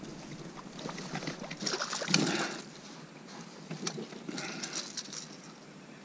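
A hooked fish splashing and thrashing at the water's surface beside the boat as it is brought to the landing net, with the loudest splashing about two seconds in and a second flurry near the end.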